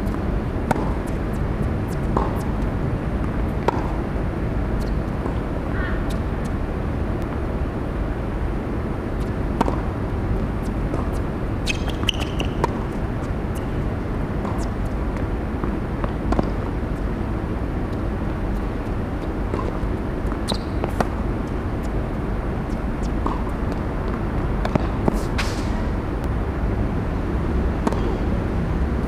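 Tennis rallies on an outdoor hard court: a string of sharp pops from rackets striking the ball and the ball bouncing, spaced irregularly a second or more apart with gaps between points, over a steady low background rumble.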